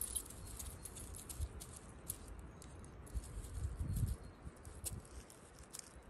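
Dry fallen leaves rustling and crackling as a leashed puppy moves and sniffs through the leaf litter, with scattered small clicks and a louder low rustle about four seconds in.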